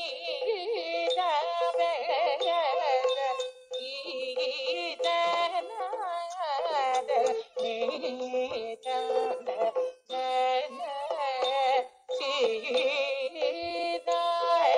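Carnatic vocal music: a voice sings a varnam melody full of sliding, ornamented notes over a steady drone pitch, pausing briefly a few times.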